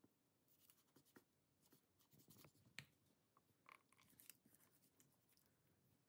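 Faint sounds of a knife cutting raw chicken on a wooden cutting board: scattered soft scrapes and light taps of the blade, the sharpest about three seconds in.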